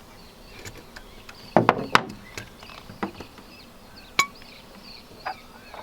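Handling of the sailboat's bailer parts and tools: a few sharp knocks and clicks, a cluster of them about a second and a half in, and a single clink that rings briefly about four seconds in.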